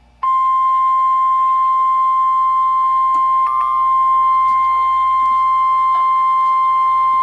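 NOAA Weather Radio's 1050 Hz warning alarm tone, a single loud steady pitch that starts abruptly about a quarter second in and holds unchanged. It is the attention signal that comes before a warning broadcast, here a special marine warning.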